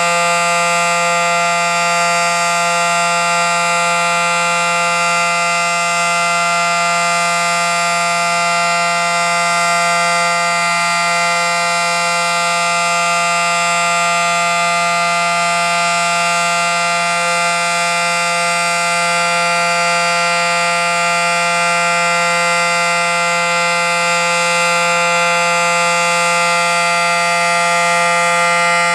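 Federal Signal SD-10 civil-defense siren sounding a steady alert signal, holding one constant pitch throughout.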